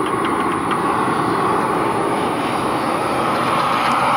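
Boeing 737-800's CFM56-7B turbofan engines on final approach with the landing gear down: a steady jet roar that grows slightly louder as the aircraft nears.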